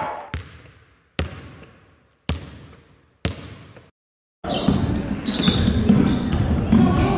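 Basketball game sound in a gymnasium. Three sharp thuds about a second apart, each echoing off the hall. Then, from about four and a half seconds in, a ball dribbling on the hardwood court amid sneaker squeaks and crowd noise.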